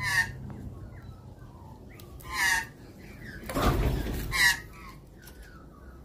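Australian magpies calling: three short harsh calls, at the start, halfway through and a little later, with faint quiet chirps between them. A rustling noise runs for about a second just before the third call.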